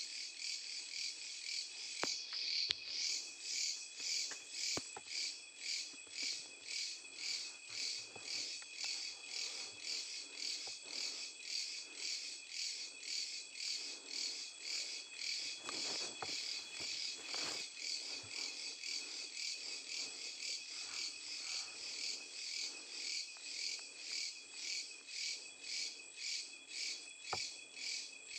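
Night insect chorus: cricket-like chirping pulsing about twice a second over a steady high trill, with a few sharp clicks.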